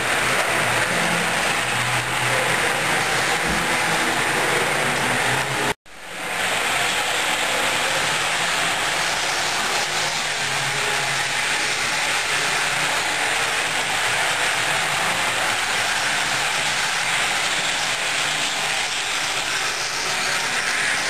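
HO scale model trains running on the layout: a steady rattling rumble of small wheels on rail. The sound cuts out abruptly about six seconds in and quickly comes back.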